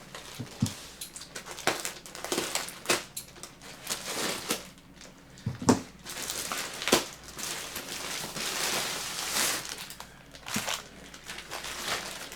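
Packaging being handled and opened: crinkling and crackling rustles with a string of sharp clicks and knocks, a longer stretch of rustling about two thirds of the way through.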